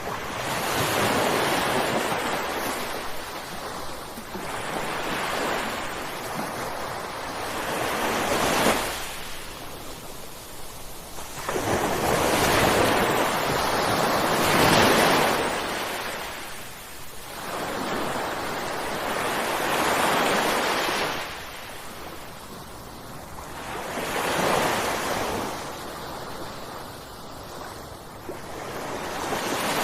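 Ocean waves breaking on the shore: a rushing surf noise that swells as each wave crashes and falls back, about every four to six seconds, one wave in the middle louder than the rest.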